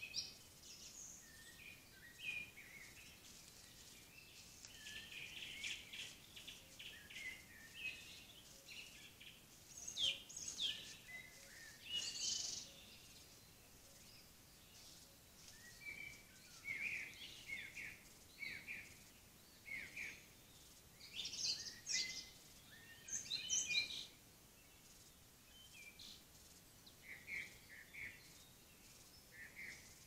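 Forest songbirds singing: a string of short, high, varied phrases and chirps, coming and going with brief quiet gaps between them.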